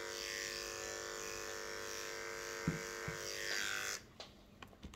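Electric pet hair clipper running with a steady hum as it shaves a cat's long fur, then cutting off suddenly about four seconds in; a few faint clicks follow.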